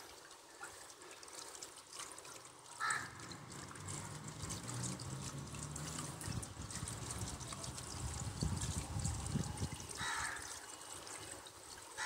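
Pool water trickling and splashing steadily as it spills over the tiled overflow edge into the gutter. A low rumble comes in about three seconds in and fades about ten seconds in.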